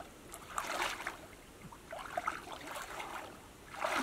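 Shallow muddy water sloshing and splashing in several short bursts as a mosquito net is drawn through it and hands work in the water.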